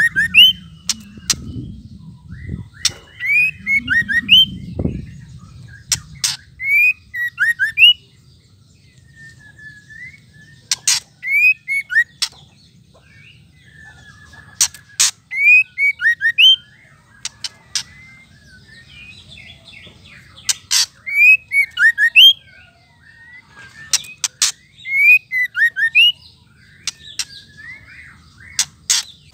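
Female white-rumped shama giving its ketrekan chatter: clusters of sharp clicks mixed with short, high whistled notes, repeated about every two seconds.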